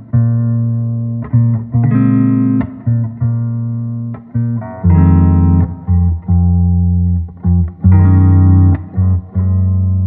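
Background music: plucked string notes that ring out and fade, over a steady low bass line.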